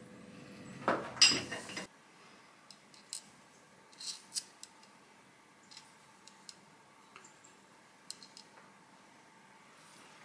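Small metal parts and tools handled on machine steelwork: a short loud rattling clatter about a second in, then scattered light metallic clicks and clinks as a tiny stainless threaded insert is set down on a steel vise block.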